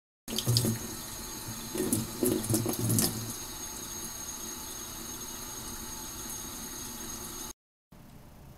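Kitchen tap running a thin stream into a stainless steel sink as a cat paws at the water, with several louder splashes and bumps in the first three seconds. The running water cuts off abruptly near the end, leaving quiet room tone.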